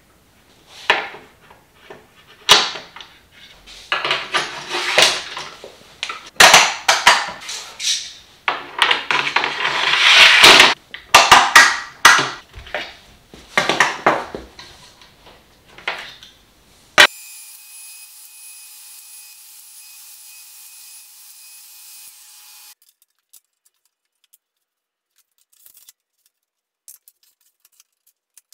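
Aluminium guide rail, end stops and clamps being handled and set on a plywood panel: a run of knocks, clicks and scraping for about the first 17 seconds. A steady faint hiss follows briefly, then near quiet with a few faint ticks.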